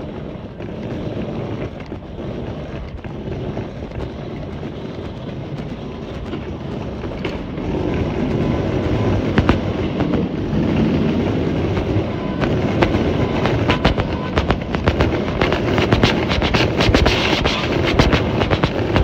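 Wheeled suitcases rolling over tiled and paved ground: a steady rattling rumble that grows louder partway through, with sharp clicks coming thick and fast in the second half as the wheels cross the paving joints.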